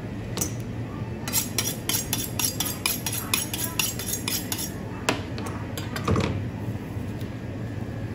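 A long kitchen knife drawn rapidly along a honing steel: a quick run of ringing metallic strokes, about four or five a second, for a few seconds. A couple more strikes follow, then a dull thump, over a steady low hum.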